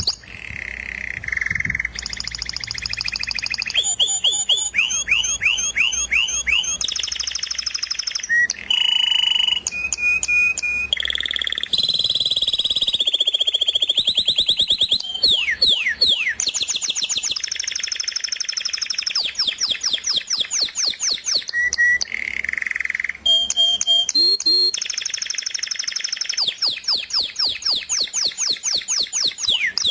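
Songbirds singing: a quick succession of different whistles, trills and rapid series of downward-sweeping chirps, changing abruptly every few seconds.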